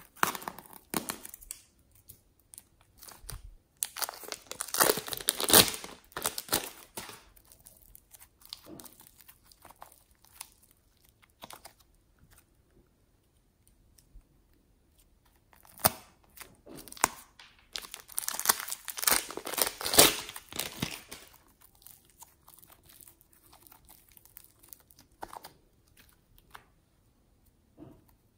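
Plastic piping bag filled with slime crinkling and rustling as hands squeeze and handle it, in two dense spells about four and eighteen seconds in with lighter crackles between. A scissor snip at the bag's tip at the very start.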